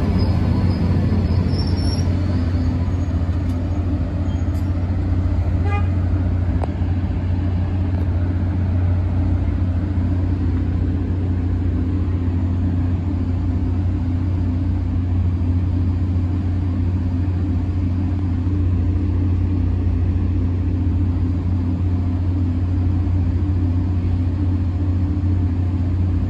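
Steady low vehicle rumble with no change in level, plus a faint high squeal that fades out in the first two seconds.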